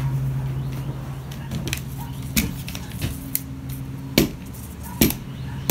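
Footsteps knocking on a hollow plywood floor, a few sharp thuds with a short booming ring, over a steady low hum.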